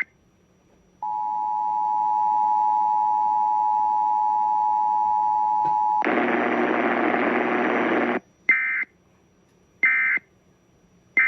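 Emergency Alert System test broadcast: the two-tone attention signal holds steady for about five seconds, followed by about two seconds of hiss, then three short warbling data bursts about a second apart, the end-of-message code.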